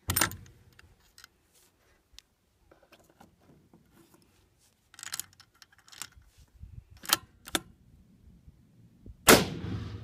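Remington 700 .308 bolt-action rifle: sharp metallic clicks of the bolt being worked and a round chambered, then a single shot about nine seconds in, by far the loudest sound, with a long echoing tail.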